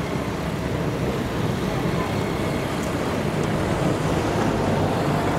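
Vintage single-deck electric tram running along street rails toward the listener, a steady rumble of wheels and motor that slowly grows louder, mixed with passing road traffic.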